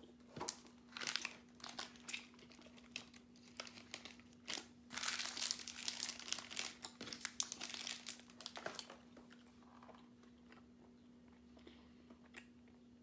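Crinkling and rustling of a Gushers snack pouch being handled and emptied into a hand, in many short bursts that are densest in the middle and die away after about nine seconds, over a faint steady hum.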